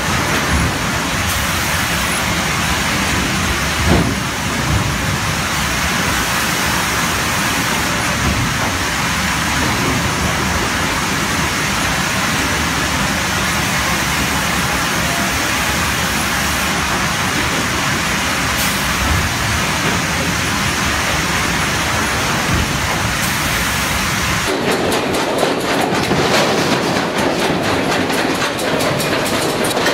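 Sawmill log-handling machinery running, a log step feeder lifting logs: a loud, steady mechanical din with a single knock about four seconds in. Near the end it changes to a rapid, even clatter of log-deck chains and logs.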